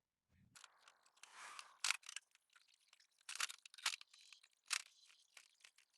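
Faint scratching strokes of a marking tool drawing lines on a steel channel, with a few light ticks as the tool or a ruler touches the metal.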